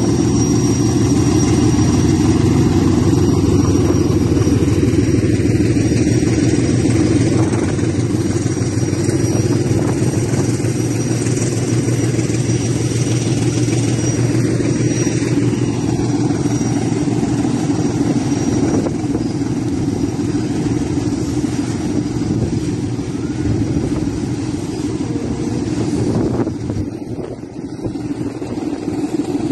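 DF7G-C diesel-electric locomotive's engine working hard under load, hauling a loaded aggregate train up a grade as it passes close by. The steady engine drone weakens in the second half as the loaded wagons roll past, with a brief drop in loudness near the end.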